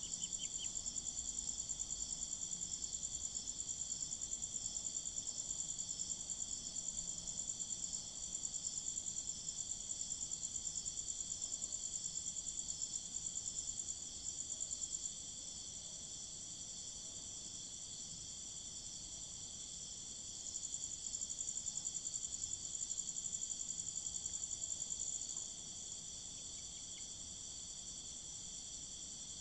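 Crickets chirping in fast, steady pulsing trills, several at once. The loudest trill stops about halfway through, starts again for a few seconds, then stops. A few short peeps come right at the start.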